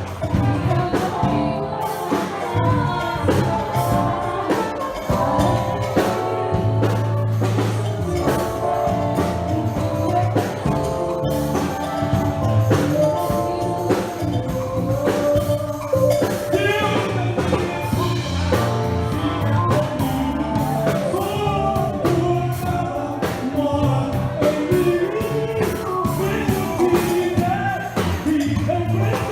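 Band music with singing over a steady drum beat, a Christian worship song.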